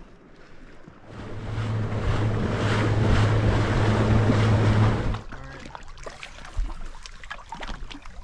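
Motorized fishing kayak running at speed: rushing water and wind noise over a steady low motor hum, starting about a second in and cutting off suddenly about five seconds in. Softer water sounds with small clicks follow.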